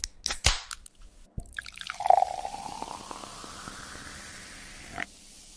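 A few sharp clicks and clinks, then liquid pouring into a glass for about three seconds, its pitch rising as the glass fills, and one small click near the end.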